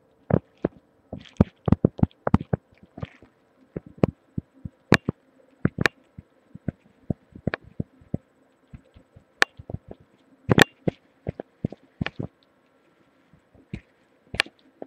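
Sharp, irregular clicks and knocks, a few to several a second with short pauses, picked up by a webcam microphone pressed against the body, over a faint steady hum.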